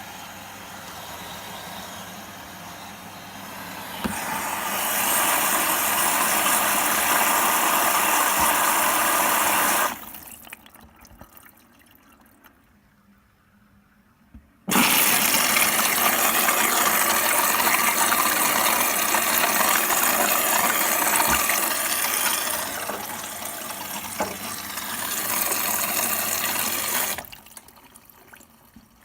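Whirlpool washing machine taking in water: a rush of water over a steady mains hum from the inlet valve, in two spells, the first growing louder after a few seconds and stopping about ten seconds in, the second starting abruptly after a short pause and running about twelve seconds.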